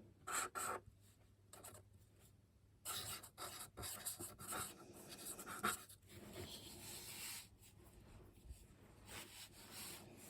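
Scratchy strokes on watercolour paper as fine painted details are put in: a few short strokes, then longer, busier stretches of strokes from about three seconds in.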